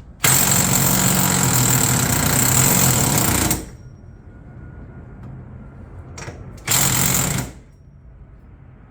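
Impact wrench hammering the hub nut down onto a new wheel hub: one long burst of about three seconds, then a brief blip and a shorter burst of under a second. It runs the nut on until the hub has no play, before the final torque to 184 foot-pounds.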